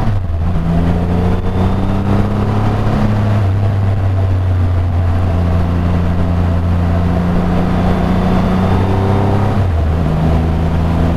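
Triumph Rocket 3 R's 2,458 cc three-cylinder engine running under way, heard from onboard, with wind rush over the microphone. The engine note holds steady and shifts pitch a couple of times, briefly near the end.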